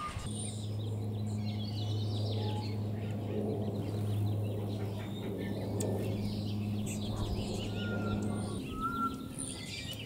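A bumblebee buzzing close by in a steady low drone that stops about eight and a half seconds in, with birds chirping in the background.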